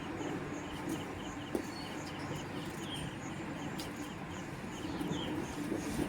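Outdoor ambience with birds chirping: short, high chirps repeating at a steady rate over a constant low background noise.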